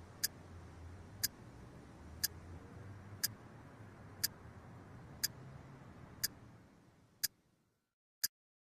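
Alarm clock ticking steadily, one sharp tick a second, over a faint low hum that fades away about seven seconds in, leaving the ticks alone.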